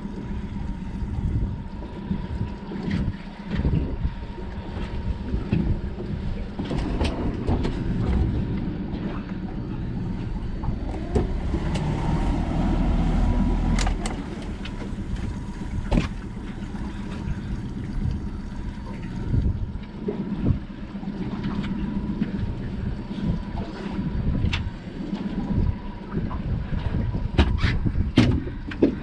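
Outboard motor running steadily with a low hum, under wind rumble on the microphone. Scattered sharp knocks and clicks cut through, a cluster of them near the end.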